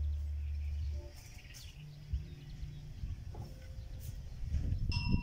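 Wind buffeting the microphone in a low, fluctuating rumble, with a few faint bird chirps. A steady high tone starts near the end.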